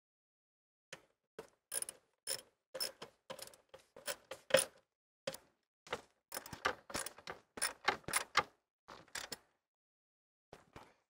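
Hand ratchet with a 10 mm socket clicking in short, irregular runs as it tightens bolts, with a pause near the end.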